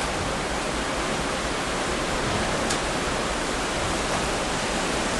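Steady rushing noise of wind on the microphone aboard a moving ship.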